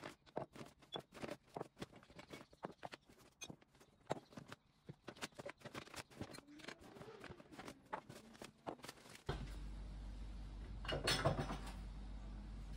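Glass jars, bottles and spice grinders being set down one after another on a wooden countertop: a steady run of light clinks and knocks, with some plastic bag rustle. About nine seconds in, a steady low hum comes in, and a brief louder clatter follows a couple of seconds later.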